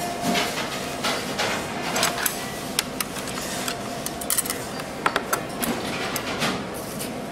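Dishes and tableware clinking and knocking in a small eatery: irregular sharp clicks, a few in quick clusters, over a steady background of room noise.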